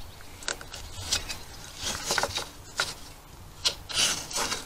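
Gloved fingers twisting and scraping at a small cover on a car's rear suspension: a run of short, irregular scrapes and clicks.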